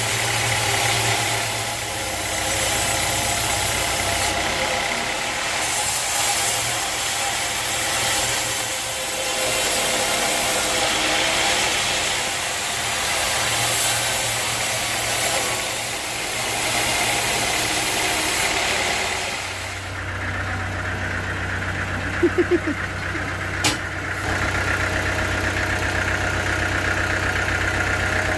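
Sawmill engine running steadily. For most of the stretch there is a hissier, noisier sound, which about two-thirds of the way through gives way to a lower, steady hum, followed by a few sharp knocks.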